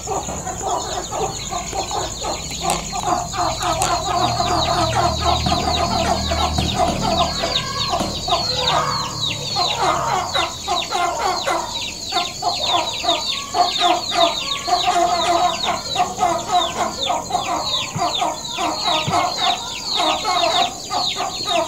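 Domestic hen clucking a low, repeated "gog gog gog", the call it makes when settling down to roost. Over it run dense high chirps that fall in pitch, several a second, and a steady high tone.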